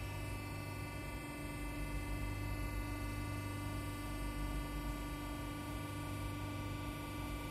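Behringer Kaltenbach HBP 263N horizontal bandsaw running: a steady mechanical hum with several fixed tones as its saw head feeds down toward a round steel bar.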